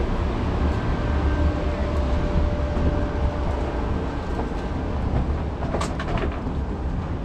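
Steady low rumble of a parked Boeing 757's air and ventilation system, heard at the cabin door. A faint steady whine sits over it for the first few seconds, and there is one sharp click near the end.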